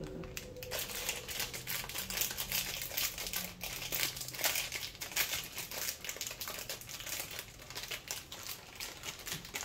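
Clear plastic snack bag of yogurt-covered pretzels crinkling steadily as it is handled to get the pretzels out.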